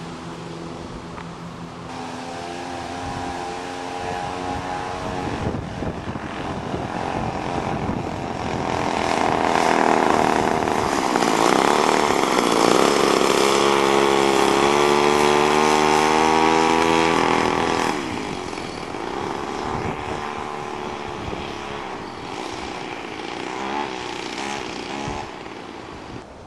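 Small two-stroke 32cc Remington chainsaw engine driving a motorized skateboard, buzzing as it rides along with its pitch rising and falling. It grows loudest in the middle and drops off suddenly about two-thirds of the way in.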